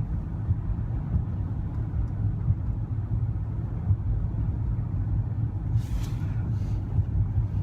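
Steady low rumble of a car with its engine running, heard from inside the cabin, with a few brief soft hissing sounds about six seconds in.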